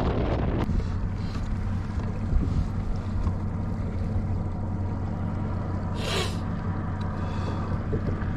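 Boat motor running with a steady low hum; a loud rush of wind and water noise over it cuts off sharply just under a second in. A brief hiss comes about six seconds in.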